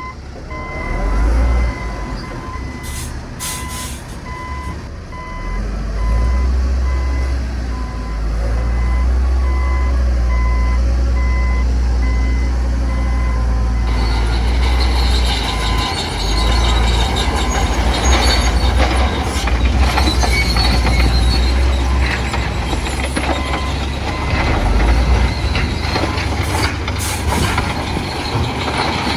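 Heavy diesel machinery running at a construction site, with a reversing alarm beeping at an even pace through the first half. From about halfway, dense metallic clanking and rattling joins the deep engine rumble.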